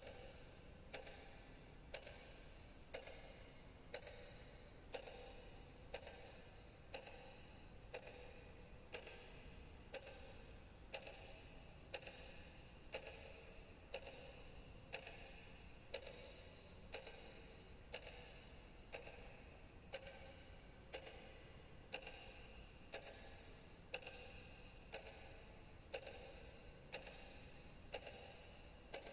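Faint, steady ticking like a clock, about one tick a second.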